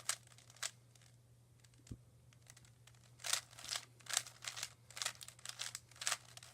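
Plastic Rubik's cube being turned quickly, its layers clicking and clacking in irregular runs that get busier about three seconds in. The cube is sticky and tends to bind as it turns.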